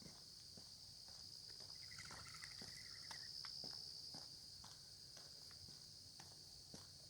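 Faint, steady high-pitched chorus of crickets, with the walker's footsteps on the lane about two a second. A short chirping call comes in around two seconds in.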